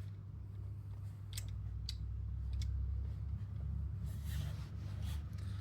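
A few light clicks from small parts being handled during assembly, and a short rustle near the end, over a low steady hum.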